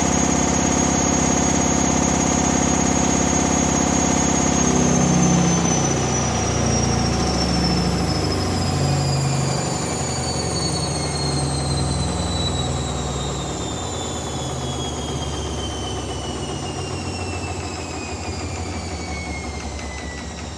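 Hoover Dynamic Next 7 kg washing machine at the end of a high-speed spin. The motor whines steadily for about four and a half seconds, then the whine falls steadily in pitch as the drum coasts down, over an uneven, wobbling rumble that slowly gets quieter.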